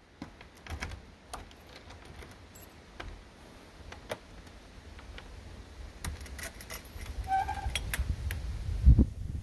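Metal clicks and rattles of keys and a door latch being worked on a wooden cabin door, then a short squeak as the door swings open. Near the end comes a heavy thump.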